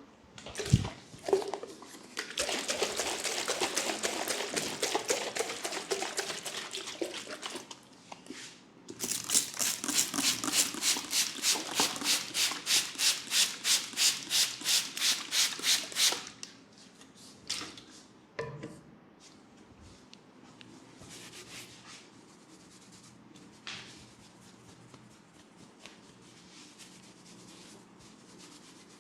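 Hands rubbing through hair and over the skin in a head massage: a few seconds of dense scratchy rustling, then fast rhythmic rubbing strokes at about four a second, then only occasional soft rustles and taps.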